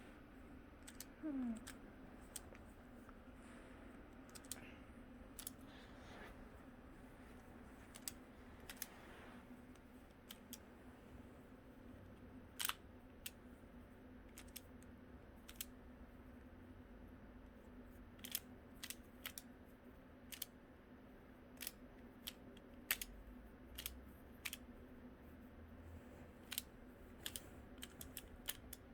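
Faint, irregular plastic clicks of a Pyraminx pyramid puzzle being twisted as it is solved, over a faint steady hum.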